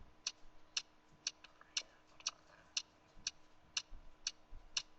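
Faint, steady clock-like ticking sound effect, two ticks a second.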